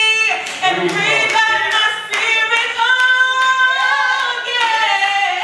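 A woman singing a gospel solo, holding long bending notes, with scattered hand claps from the congregation.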